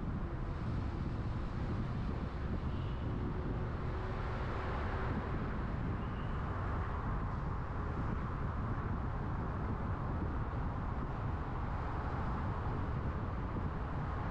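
Steady road noise of a moving car: a continuous low rumble of engine and tyres on the road.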